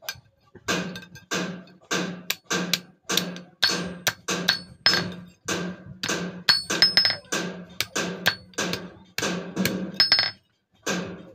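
Hand hammer striking an unheated steel sickle blank on an iron anvil, each blow ringing briefly. The blows come a little over two a second, some in quick pairs, with a short break about ten seconds in before the hammering resumes.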